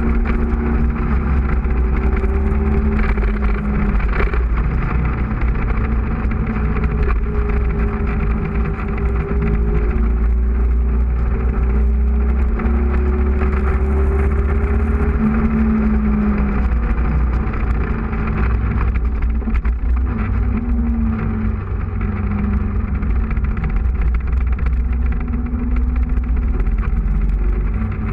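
Motorcycle engine running at speed, its pitch rising and falling several times with the throttle and gear changes, under steady wind noise.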